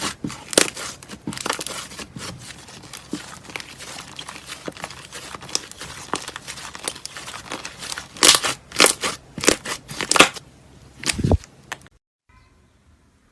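Slime being squeezed and pressed by hand, giving a dense run of crackling, popping clicks, with louder pops from about eight to ten seconds in. A soft low thud comes just before the sound stops, about a second before the end.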